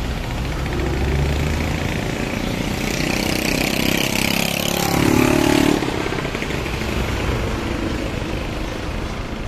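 A motor vehicle's engine running and passing close by: the noise builds to its loudest about five seconds in, then drops off suddenly.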